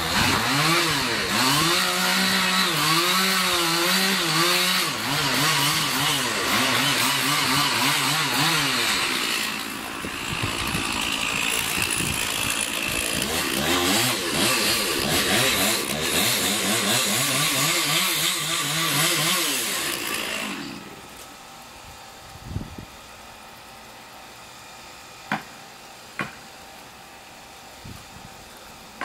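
A small engine running, its pitch wavering up and down, then stopping about twenty seconds in. A few sharp clicks follow.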